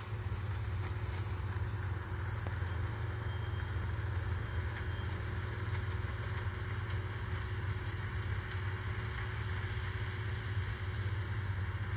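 Sugarcane harvester and the tractor hauling its cane wagon, engines running steadily some distance off, a low even hum with no changes.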